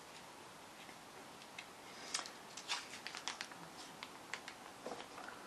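Faint, irregular clicks and taps of painting supplies being handled: a tub of white acrylic paint and a board, with a quick run of small ticks about two to three seconds in.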